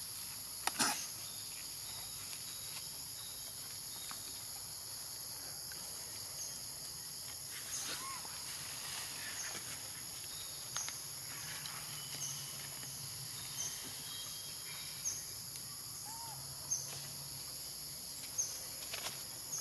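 Steady high buzzing of an insect chorus, with a short chirp repeating about every second and a half. A few sharp clicks or rustles break in, the loudest about a second in, and there are two faint short squeaks.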